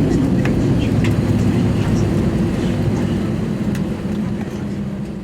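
Airbus A320 cabin noise after landing: a steady low rumble from the idling jet engines with a steady hum and occasional light rattles, fading out near the end.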